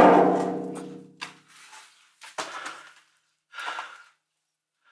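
Empty steel keel box set down onto bathroom scales: a sharp clang, the steel ringing on for about a second and a half, followed by a few fainter knocks.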